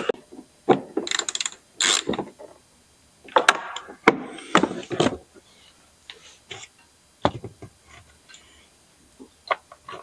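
Socket ratchet clicking in short bursts as it drives a 10mm bolt behind a car door's latch handle, with scattered clicks and knocks of tool and door parts being handled.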